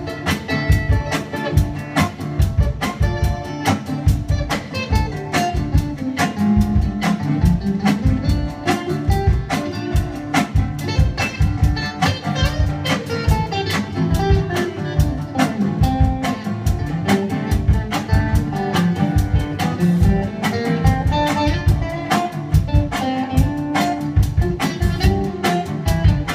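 Instrumental break of a song: guitar over a steady drum beat, with no singing.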